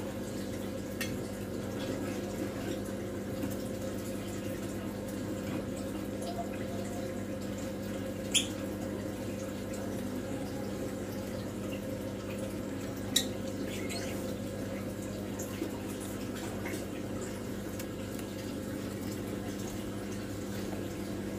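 Aquarium filter running: a steady hum with water trickling. Two sharp clicks come about five seconds apart, near the middle.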